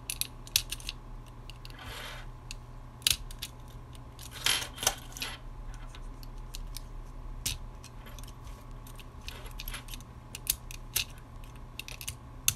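Irregular small metallic clicks and scrapes as a precision screwdriver tip pries LR1130 button-cell batteries out of a plastic keychain flashlight's battery compartment.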